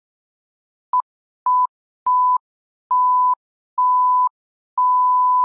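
Electronic beep tone at one steady pitch, sounding six times with dead silence between, the beeps growing longer from a short blip about a second in to about a second long near the end.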